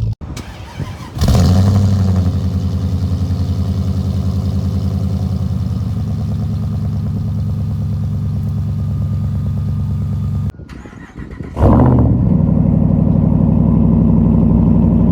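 Pickup truck engine starting and catching about a second in, then running at a steady idle. After a break about ten and a half seconds in, it starts again and settles into the same steady idle.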